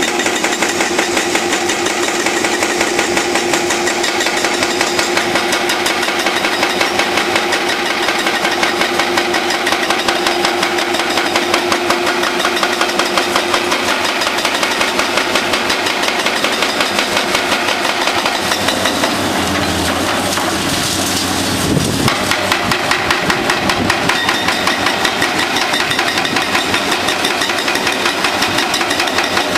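Hydraulic breaker on an excavator hammering a thick concrete bunker wall in rapid, steady blows, with the excavators' diesel engines running underneath. About twenty seconds in, a louder, deeper rumble lasts a couple of seconds.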